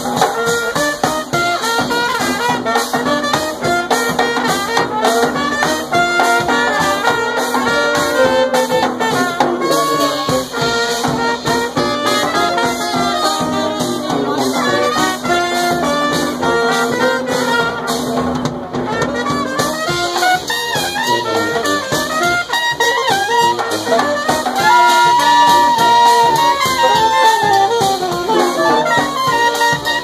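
Small brass band playing an upbeat jazz number: sousaphone carrying the bass line under saxophone and two trumpets, with a drum keeping the beat.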